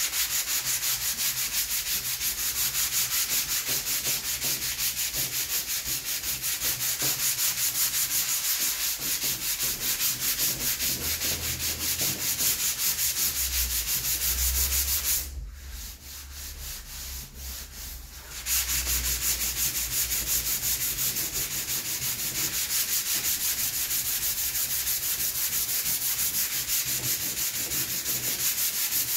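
Sandpaper on a hand sanding block, rubbed back and forth over body filler on a plastic motorcycle fairing panel to flat the filler down by hand. Steady rapid strokes, with a pause of about three seconds just past the middle.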